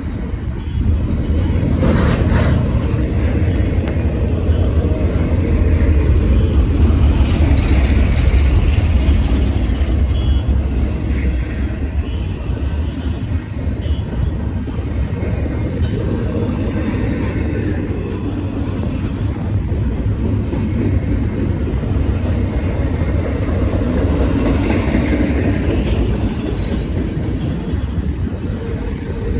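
CSX freight train rolling past: a steady, loud rumble of steel wheels on rail.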